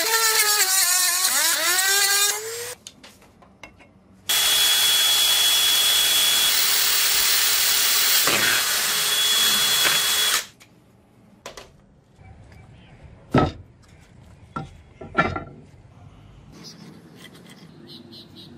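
Power drill boring into a cast brass part, running loud and steady for about six seconds before stopping. Before it, a motor whine wavers in pitch, then rises and cuts off. After the drilling come a few sharp knocks.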